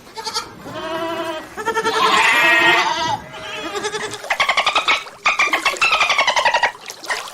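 Goat bleating: a run of about four drawn-out, wavering calls, the last two buzzier and falling in pitch.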